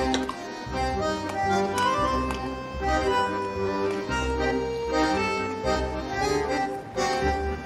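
Instrumental background music: held melody notes over a recurring bass line.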